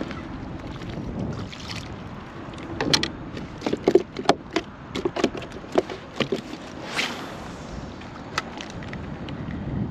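Wind noise on the microphone, with a run of about a dozen irregular knocks and clicks over some four seconds, starting about three seconds in, from gear being handled against a plastic kayak.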